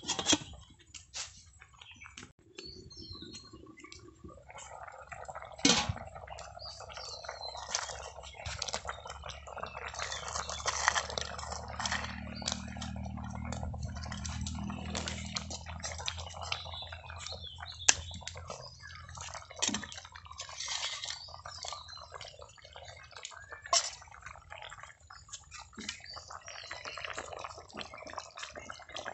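Curry bubbling and sizzling in a metal karahi, a steady crackling hiss, with a few sharp clinks of a metal lid and spatula against the pan. A low rumble sits underneath for a few seconds in the middle.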